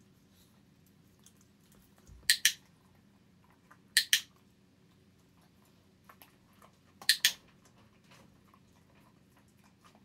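Handheld dog-training clicker clicked three times, each a quick two-part click-clack, about two and three seconds apart. Each click marks the puppy lying down, the signal that a food reward follows.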